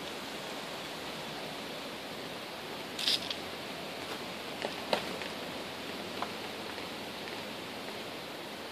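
Steady even hiss with no pitch. A few brief soft rustles and clicks come about three seconds in, then twice around five seconds and once near six.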